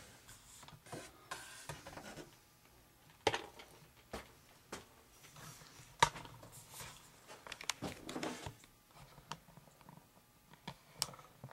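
Scattered light knocks, clicks and rustles of hands handling and moving things on a workbench, with one sharper knock about six seconds in.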